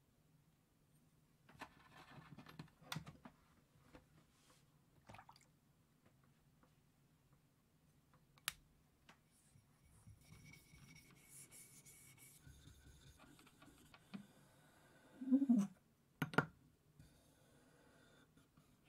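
Faint clicks and rustles of a steel spokeshave blade being handled. Then the blade is rubbed back and forth on a wet waterstone, giving a soft gritty scraping, with a brief louder squeak and a sharp knock near the end.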